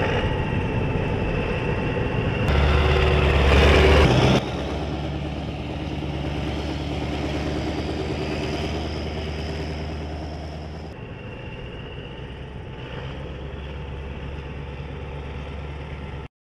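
Heavy military truck engine running steadily. It is loudest for a couple of seconds early on and shifts abruptly in level a few times.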